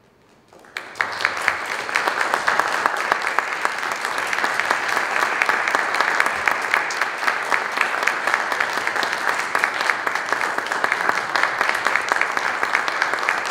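Theatre audience applauding, starting suddenly about a second in and holding steady as a dense mass of many hands clapping.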